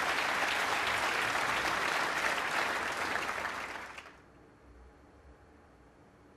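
Audience applauding in a snooker arena, dying away about four seconds in.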